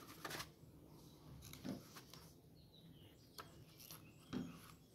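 Near silence with a few faint rustles and soft taps of cardstock and paper strips being handled and pressed into place.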